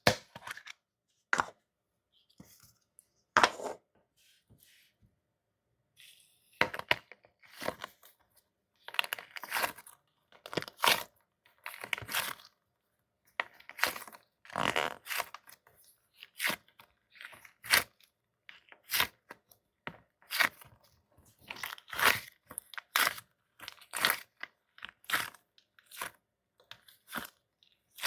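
Crunchy squishy toy ball being squeezed over and over, giving short crackling, crunching squeezes, about one or two a second, with a brief pause about five seconds in.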